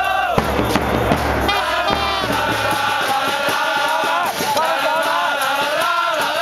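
Football crowd singing a chant together in unison, many voices holding long sung notes.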